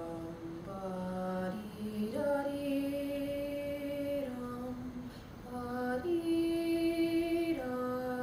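A woman singing a slow phrase in long, steady held notes that step up and down in pitch, with a short breath about five seconds in.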